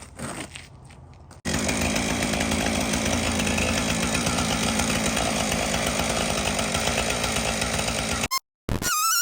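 Chainsaw running at full throttle in an Alaskan chainsaw mill, ripping a slab cut through a very hard mountain mahogany log. It cuts in suddenly about a second and a half in and stops abruptly near the end, where a wavering, gliding whistle-like tone takes over.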